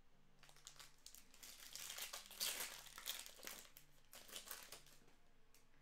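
Trading-card pack wrapper crinkling as it is torn open and handled, starting about half a second in, busiest in the middle and thinning toward the end.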